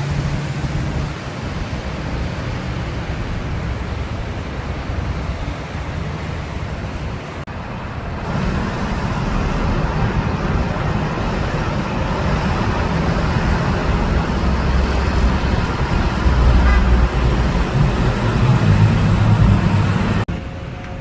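Road traffic: the engines and tyres of passing motor vehicles. There is a brief break about seven seconds in, then it grows louder, with a heavy low engine hum strongest near the end.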